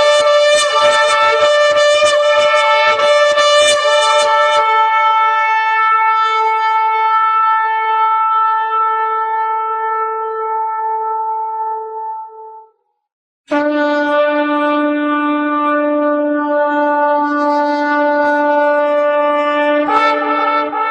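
Two long, loud blasts on a horn, each a single held note. The first lasts about twelve seconds and fades away. After a brief pause the second starts lower and jumps up in pitch near the end.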